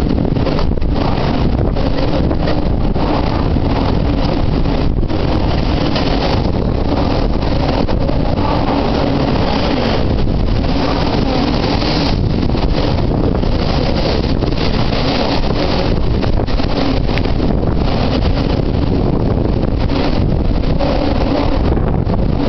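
Typhoon wind buffeting the camera's microphone: a loud, unbroken rumble of wind noise with no let-up.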